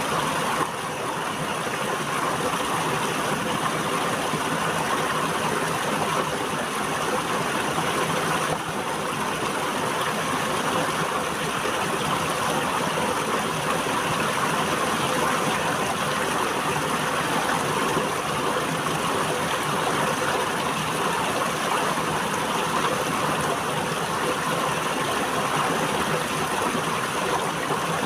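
River water flowing over rocks, a steady rushing with no pauses.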